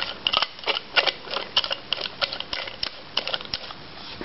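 Nut being spun by hand onto a threaded rod through a plastic line spool: light, irregular metallic clicks and rattles, about three or four a second, thinning out near the end.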